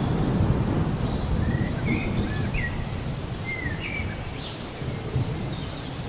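Steady rain with a low rumble of thunder dying away in the first second or so. In the middle a bird calls a quick run of short chirps that sweep up and down.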